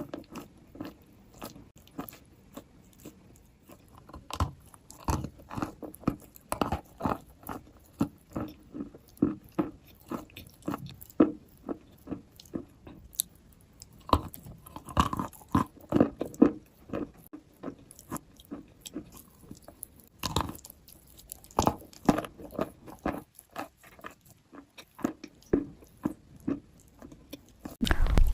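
Wet white chalk being bitten and chewed, giving an irregular run of short crisp crunches.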